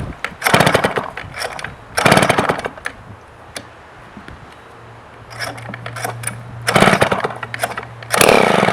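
Homelite XP 1000 100cc two-stroke chainsaw being pull-started cold: the engine fires in four short sputtering bursts, dying back in between, and catches with the last burst near the end.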